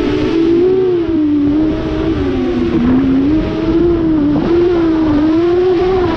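Motors and propellers of an eight-motor X8 FPV quadcopter, heard from its onboard camera: a steady whine whose pitch rises and falls with the throttle.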